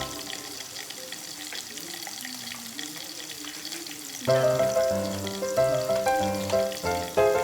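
Pork sizzling on a grill, a steady crackling hiss, under background music. The music drops away for the first four seconds or so, leaving mostly the sizzle, then comes back in.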